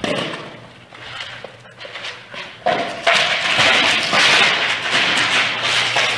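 A dog carrying and nosing a capped plastic bottle filled with dry kibble across a concrete floor: the bottle knocks and scrapes on the concrete while the kibble rattles inside. The clatter becomes louder and denser about three seconds in.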